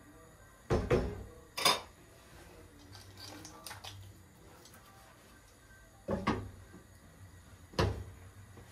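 Knocks and clinks of cookware: a wooden spoon knocking on a stainless steel pot, a pair of knocks about a second in and another shortly after, then two more near the end as the glass lid is set on the pot.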